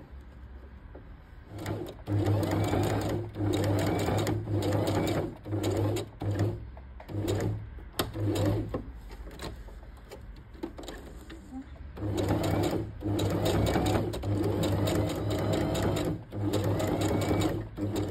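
Electric domestic sewing machine stitching through layers of felt, running in short stop-start spells of about a second each. It pauses for about three seconds midway, then runs again in a few longer spells.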